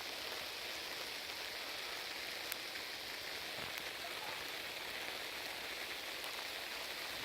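Steady rain falling, an even hiss, with one sharp click about two and a half seconds in.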